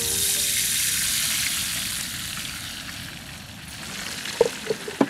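Food frying in hot oil: a steady sizzle that slowly dies down, with a few sharp clicks near the end.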